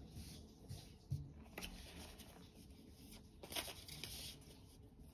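Faint handling of a deck of tarot cards: soft rustles of card stock with a few light taps.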